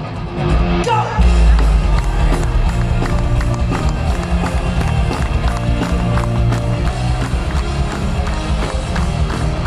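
Folk-tinged heavy metal band playing loudly through a festival PA, with electric guitar, keyboard and drums under steady drum strokes and heavy bass, recorded from inside the crowd.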